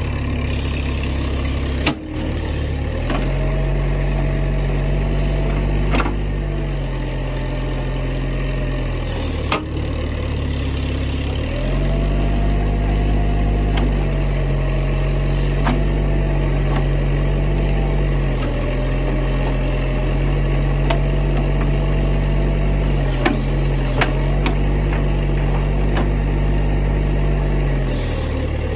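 A Bobcat digger's diesel engine runs steadily while the backhoe bucket digs out a tree stump. The engine note dips and recovers several times as the hydraulics take load, and there are a few sharp knocks from the bucket.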